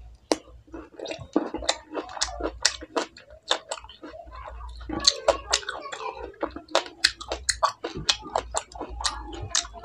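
Close-up chewing of a mouthful of green grapes: irregular sharp wet mouth clicks and smacks, several a second.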